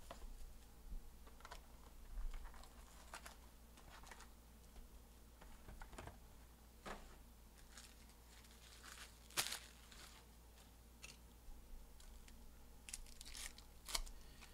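Trading card packs and their box being handled and opened by hand: quiet, scattered rustles and crinkles of foil pack wrappers, with a few sharper tearing sounds, the loudest about nine and a half seconds in and just before the end.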